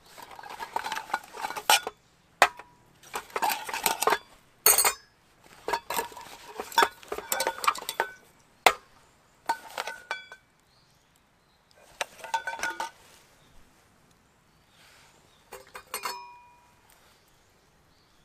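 Metal and glass coffee gear being unpacked and set down on an aluminium slatted table: a collapsible brass coffee dripper, an enamel mug, a hand coffee mill and a glass jar of beans. It comes as clusters of clinking and rattling, some with a short metallic ring, separated by brief pauses.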